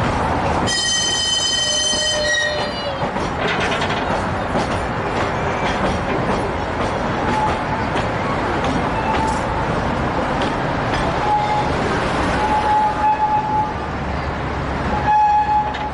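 Small children's-railway train running, with a steady rumble of the carriage on the rails. The train's horn sounds about a second in for roughly two seconds, dropping slightly in pitch as it ends. Short, high wheel squeals come several times in the second half.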